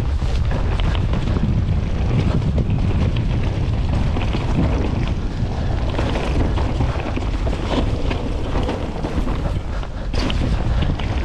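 Mountain bike riding down a dirt singletrack: wind buffeting the microphone over a steady rumble of tyres on the trail, with frequent knocks and rattles from the bike over bumps.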